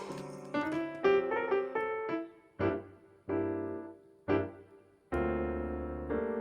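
Solo piano music: a melody of struck notes and chords that die away, with brief pauses between phrases and a fuller held chord near the end.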